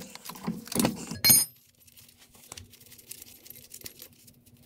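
Steel wrench and nuts clinking as the nuts holding a rear brake drum are cracked loose and turned off the studs, with one sharp, ringing metallic clink about a second in. After that, only faint clicks of the nuts being spun off by hand.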